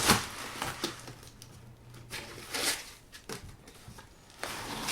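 Packaging being handled while unpacking a 3D printer's power cable: a few short rustles and scrapes with a couple of light ticks.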